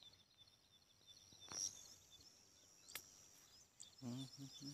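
Faint field ambience: small birds chirping over a steady high insect buzz, with two sharp clicks. A low voice starts near the end.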